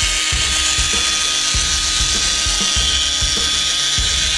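Milwaukee M18 FUEL cordless pipe threader running steadily in reverse, backing its 1-inch die head off a freshly threaded pipe, with a steady high motor whine.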